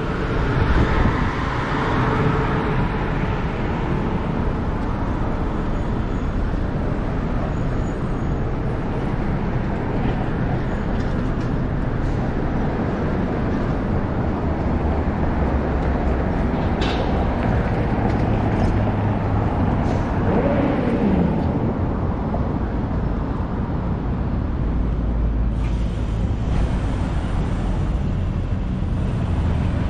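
City street traffic: a steady mix of car, taxi and bus engines with a low rumble. A brief falling tone comes about two-thirds of the way through.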